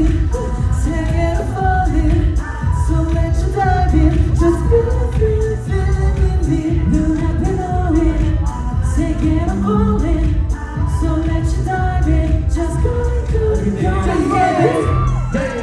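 K-pop dance track with singing, played loud over a theatre's sound system, with heavy, driving bass under a melodic vocal line.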